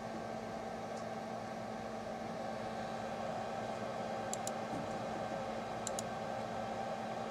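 Computer mouse clicking, two quick double ticks about four and six seconds in, over a steady hum with a low tone.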